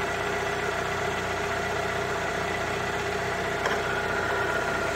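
2000 Toyota Camry's 2.2-litre four-cylinder engine idling steadily.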